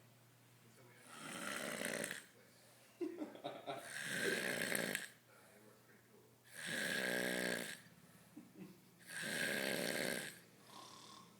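A man snoring, really loud and deep, in a heavy drunken sleep: four long snores at an even rhythm, about two and a half seconds apart.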